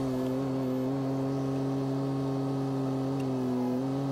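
John Deere compact excavator's diesel engine running steadily at working speed as it digs, its note sagging slightly near the end under hydraulic load.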